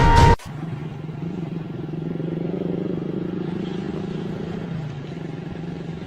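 Music cuts off suddenly, giving way to a vehicle engine running steadily with a low drone.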